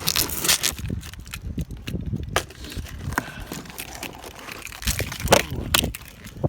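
Packing tape and cardboard on a large shipping box being slit and torn open with a key: irregular crackling, scraping and crinkling, with a few sharper rips near the end.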